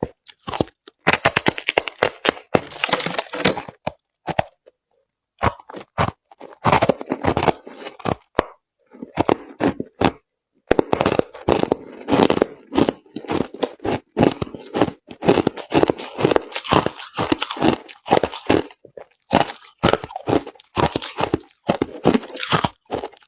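Crushed ice being chewed close to the microphone: quick runs of sharp crunches and cracks, broken by a couple of short pauses.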